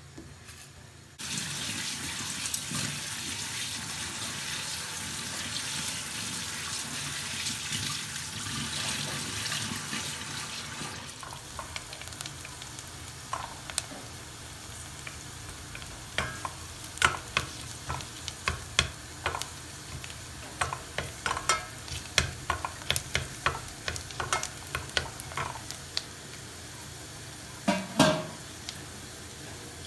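Food sizzling in a hot pan, the hiss starting suddenly about a second in as it goes into the pan, then settling lower. A utensil clicks and scrapes against the pan as it is stirred, with one louder knock near the end.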